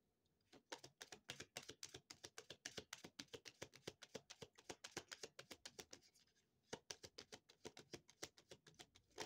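A deck of tarot cards being shuffled by hand: a quick run of soft card flicks, about six a second, with a short pause about six seconds in before the shuffling picks up again.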